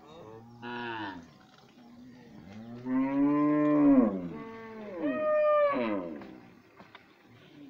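Cattle mooing: a few drawn-out calls, the longest and loudest about three seconds in.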